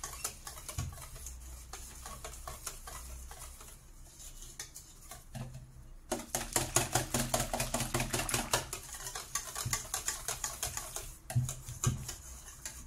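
Wire whisk beating crêpe batter in a stainless steel bowl, the wires ticking rapidly against the metal as the lumps are whisked out. The whisking is softer for the first half and louder from about six seconds in.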